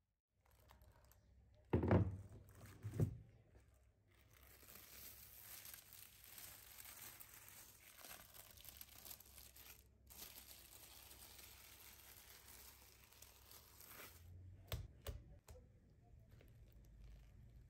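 Plastic cling film crinkling as it is handled and peeled off a tray of set milk pudding, after two thumps near the start. A few soft knocks near the end as whipped cream is dropped onto the tray from a spatula.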